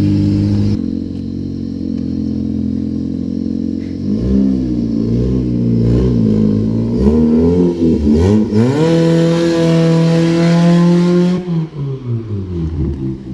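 Nissan Micra rat rod's engine running loud: steady at first, blipped up and down several times from about four seconds in, then pulling up through the revs in one long rise and holding high before easing off near the end.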